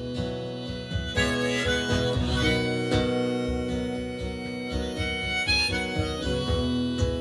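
Instrumental intro of an Americana rock song played live: a harmonica carries the melody in long held notes over guitar accompaniment.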